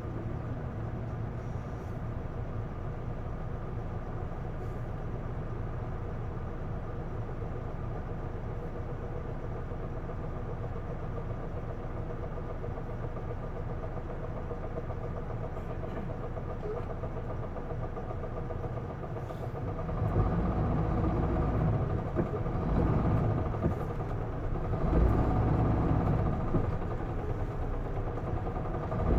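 Isuzu Erga route bus diesel engine heard from inside the cabin, running steadily at low revs, then getting louder and heavier about two-thirds of the way through as it works under load.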